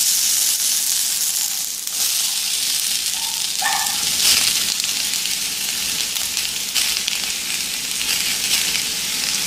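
Carrot and zucchini slices sizzling in melted butter in a steel frying pan, a steady frying hiss.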